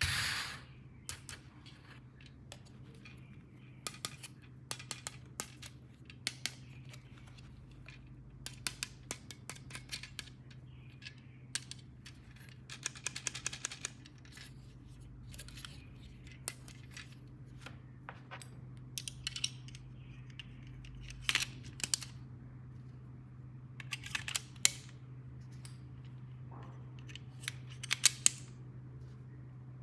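Plastic toy packaging and parts being handled and opened by hand: a scattered run of sharp clicks and snips, with a quick rattle of clicks about thirteen seconds in, over a steady low hum.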